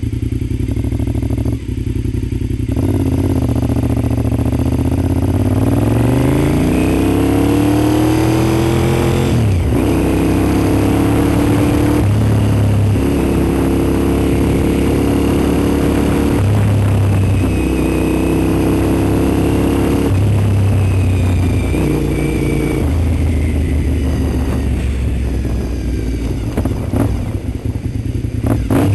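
Honda RC51's 90-degree V-twin engine heard from on the bike while riding. About four seconds in it revs up steadily for several seconds and then drops sharply at an upshift. After that it runs at steadier speeds, its pitch stepping up and down several times with gear changes and throttle changes.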